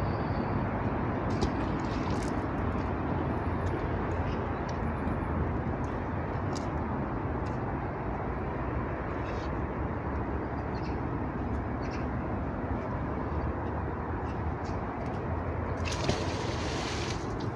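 Steady rumble of road traffic noise, with a brief louder hiss near the end.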